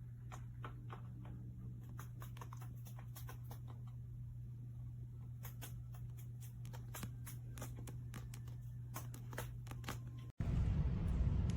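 Scattered light clicks and taps over a steady low hum. Near the end it cuts off and gives way to a louder, noisy rumble.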